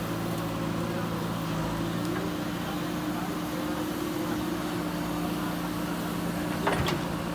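JCB backhoe loader's diesel engine running at a steady drone, with a slight rise in pitch about two seconds in. A single sharp metallic clank comes near the end.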